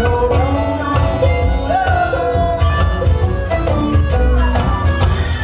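A live folk-roots band playing a song: fiddle, banjo, acoustic guitar and drum kit, with a steady drum beat underneath.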